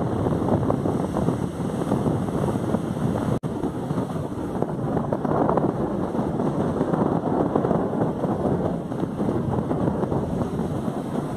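Wind buffeting the microphone over the rush of surf breaking on a beach, a steady rough noise that cuts out for an instant about three and a half seconds in.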